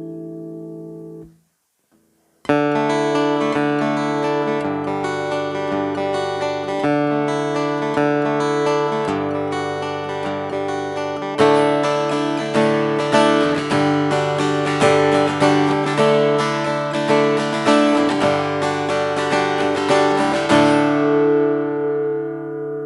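Cort AD810 OP acoustic guitar being played: a chord rings and cuts off about a second in, and after a short gap the playing resumes. From about halfway it settles into steady accented strumming at roughly one and a half strokes a second, and near the end a final chord is left to ring.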